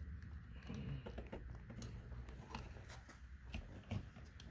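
Scattered light clicks and rubbing of plastic interior trim being handled and fitted back into place, over a low steady hum.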